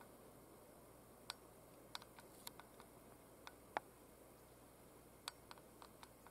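Near silence, with scattered short sharp clicks at irregular intervals, the loudest nearly four seconds in.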